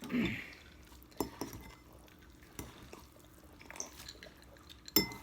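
Cutlery clinking against dishes during a noodle meal: a few separate sharp clicks, the loudest near the end.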